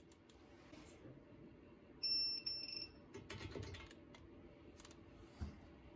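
A single high electronic beep of about half a second, about two seconds in: a digital torque wrench signalling that the caliper bracket bolt has reached its set torque of 80 ft-lb. Faint tool clicks follow, and a short knock near the end.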